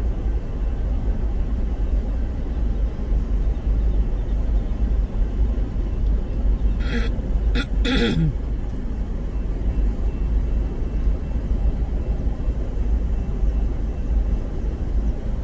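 Steady low rumble of a long freight train of covered hopper cars rolling past, heard from inside a stopped car. About seven seconds in, a short hiss comes in three quick bursts, with a brief falling tone.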